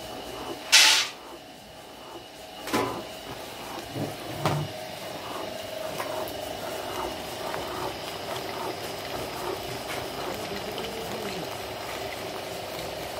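Motor-driven stone mill grinding almonds into amlou paste, running with a steady hum. A loud short hiss comes about a second in, and a few knocks and thumps follow before the hum settles.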